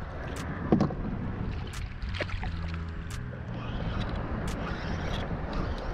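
Wind on the microphone and water lapping against a plastic sit-on-top kayak, with a few sharp clicks of fishing gear and a louder knock just under a second in.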